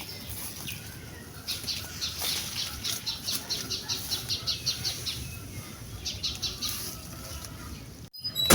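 Small bird calling outdoors in quick runs of short, high chirps, about five a second: a long run lasting a few seconds, then a shorter run about six seconds in.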